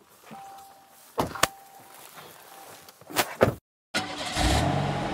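Doors of a 2017 Land Rover Discovery shutting, one about a second in and another about three seconds in, each a short double knock, with a faint steady chime tone in between. After a brief break, a rising music sting begins near the end.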